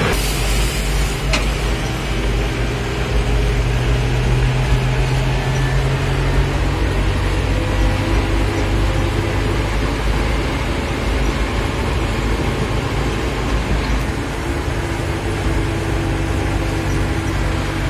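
Farmtrac 675DTN tractor's diesel engine pulling trailers loaded with heavy bales, heard from inside the cab: a steady low drone whose note rises slightly a few seconds in, then settles, over the rumble of the rig on gravel.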